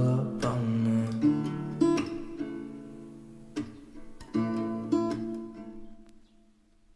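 Background song music: strummed acoustic guitar chords ringing on and fading out, dying away to near silence near the end.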